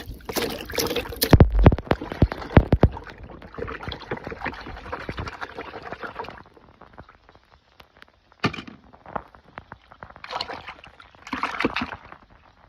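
Small objects and packaging being handled: a run of sharp plastic clicks and knocks, then rustling until about halfway, then occasional short rustles and clicks.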